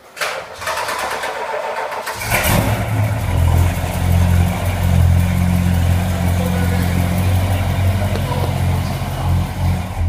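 1970 Dodge Charger R/T's V8 being started: the starter cranks for about two seconds, then the engine catches and settles into a loud, steady idle.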